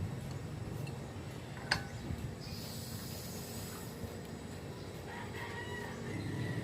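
Chickens clucking in the background over the steady low hum of a running refrigerator compressor. There is one sharp click about two seconds in, followed by a short hiss.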